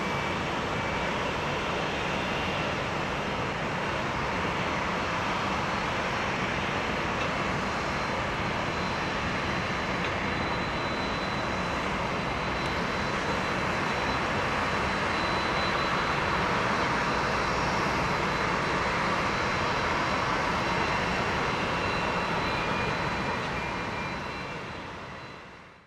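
Boeing 737-800's CFM56-7B jet engines running at low power as the airliner rolls along after landing: a steady jet rush with a faint high whine, a little louder midway, fading out near the end.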